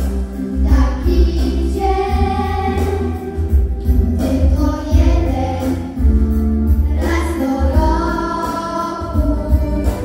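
A group of six children singing together into microphones over amplified backing music with a steady, pulsing bass.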